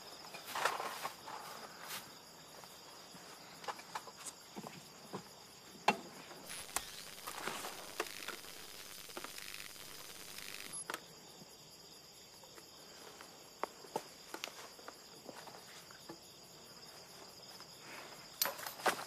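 Steady high trilling of insects, with scattered light clicks and rustles as gear and a wire are handled.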